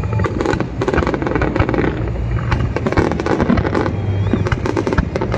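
Fireworks display: a dense run of sharp bangs and crackling pops from aerial shells bursting, many in quick succession over a low rumble.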